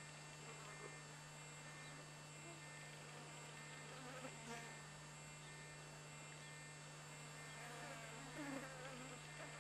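Near silence: a faint steady hum, with a few faint short chirping sounds about halfway through and again near the end.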